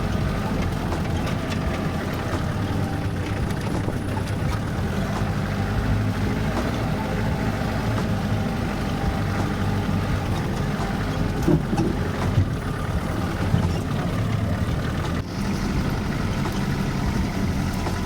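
A vehicle's engine running steadily with road noise, with a few short knocks near the middle.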